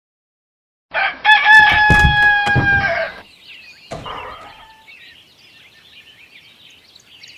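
Rooster crowing once, about a second in, a long cock-a-doodle-doo held for about two seconds. Small birds chirp faintly after it.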